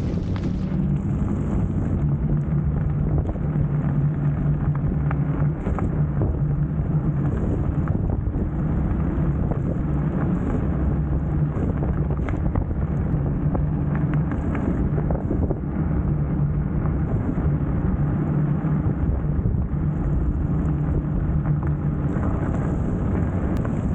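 Wind noise on the microphone and tyre noise on a wet road from a moving fat-tyred electric scooter towing a dog trailer, with a steady low hum underneath.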